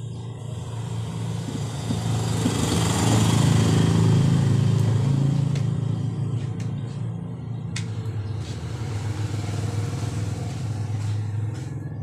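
A motor vehicle's engine swells to a peak about four seconds in and then fades as it passes. A few light clicks follow as a DC power plug and a small set-top box are handled.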